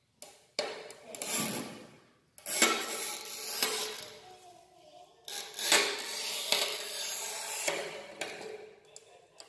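Manual push tile cutter's scoring wheel scratching across a narrow tile strip as its carriage is pushed along the rail. It comes as several long gritty scraping strokes with brief pauses between them.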